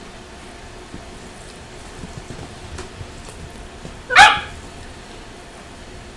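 A small dog gives one short, sharp bark about four seconds in, a play bark while two small dogs romp together.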